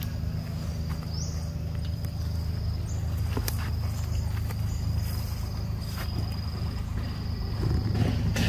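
Outdoor forest ambience: a steady low rumble under a thin, steady high-pitched insect drone, with a few short rising chirps in the first few seconds and occasional light clicks.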